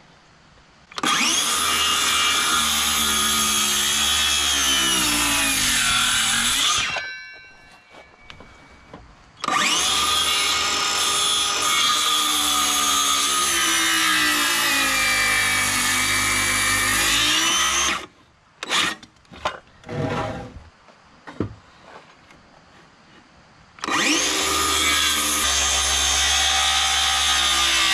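DeWalt cordless circular saw cutting through rough-sawn lumber: three long cuts of several seconds each, the motor's whine sagging in pitch under load and recovering, with a few short bursts of the saw between the second and third cut.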